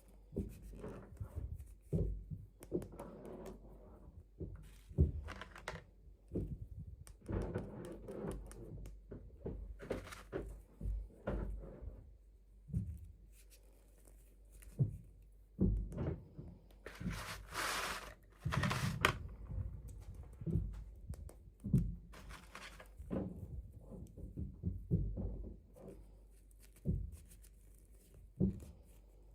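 Hands handling toy packaging and small plastic doll pieces: irregular soft knocks and taps throughout, with a longer rustling, tearing burst about two-thirds of the way in.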